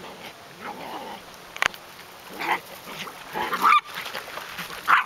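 Bichon Frise puppies giving short, high yips during play-chasing, about one a second.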